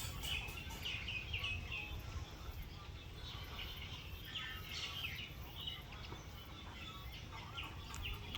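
Birds chirping, many short high calls coming one after another, over a steady low rumble.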